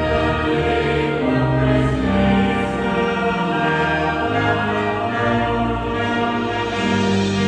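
A choir singing slowly in long, held notes that change every second or two.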